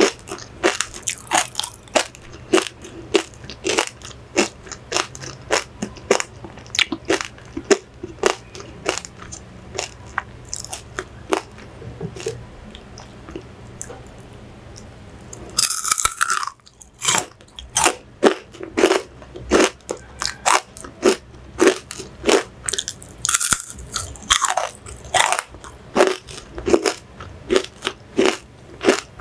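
Close-up crunching and chewing of chicharrón (deep-fried pork rinds): crisp crunches come a few times a second. They thin out for a few seconds in the middle, then pick up again with a fresh bite.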